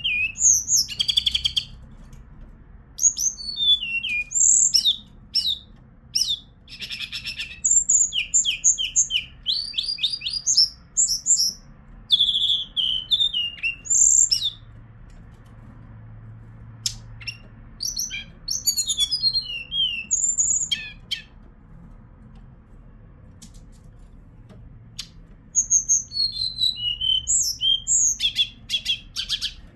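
Hill blue flycatcher (Cyornis whitei) singing in phrases of quick, high, sweet notes and short trills, with pauses of a few seconds between bursts of song.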